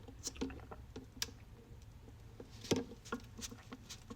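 A person chewing food close to the microphone: soft, scattered wet mouth clicks, with a louder cluster about two-thirds of the way through.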